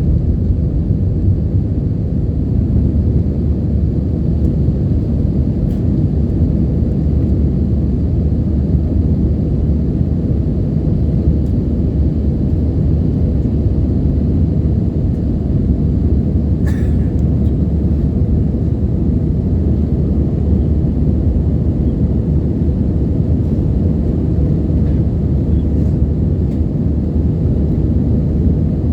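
Airliner cabin noise during the climb after takeoff: a steady low rumble of engines and airflow, with a single brief click about seventeen seconds in.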